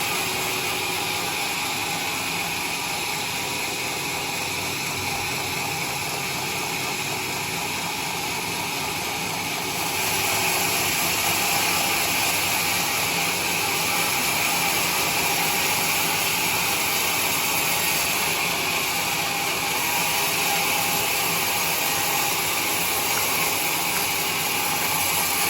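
Homemade band sawmill running with a steady, dense whine-and-hiss, getting louder about ten seconds in.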